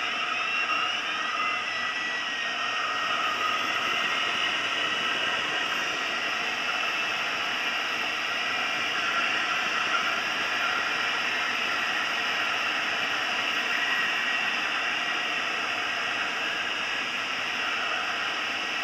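Steady rush of air over the cockpit canopy of a Schleicher ASK 23b glider in flight, with thin whistling tones that drift slowly up and down in pitch.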